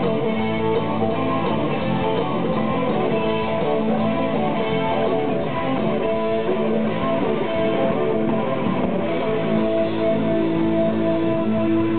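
Live rock band playing: an electric guitar, a Blade RH4 through a Mesa/Boogie F30 amp, plays lead lines over drums and bass, holding a long note near the end.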